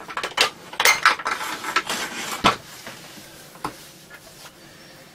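Metallic clicks and clinks of an anti-static wrist strap being handled and its grounding lead clipped on: several sharp clinks in the first two and a half seconds, then one more click about a second later.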